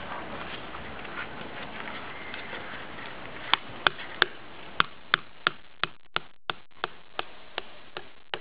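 Faint hiss, then from about three and a half seconds in a run of sharp, evenly spaced clicks, about three a second, from a Fly SL400 slider mobile phone while its anti-theft alarm is being set.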